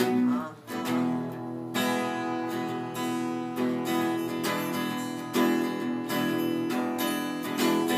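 Acoustic guitar strumming chords. The strumming gets fuller from about two seconds in.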